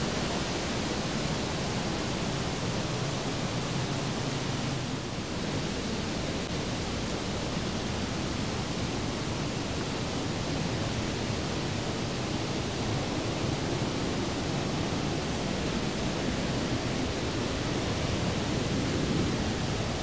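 Steady rushing of flowing water, an even noise with no breaks.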